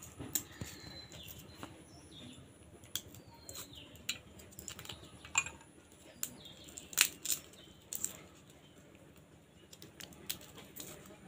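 Dry crackling and light clicks of garlic skins being peeled by hand and scraped with a small knife, with a few sharper clicks, the loudest about seven seconds in.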